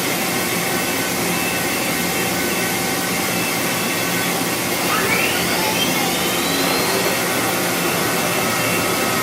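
A 5-axis CNC machine running, with a steady loud hiss of spindle, coolant and air and faint steady tones over it. About five seconds in, a higher whine sweeps upward and levels off.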